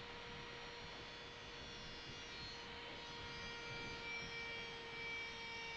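Small hand-held router with a 6 mm bit spinning, a faint, steady whine. A few higher tones join about three seconds in.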